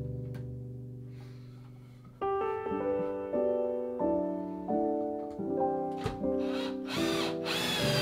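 Background piano music: a held chord fades away, then a slow line of single notes begins about two seconds in. A few short knocks sound near the end.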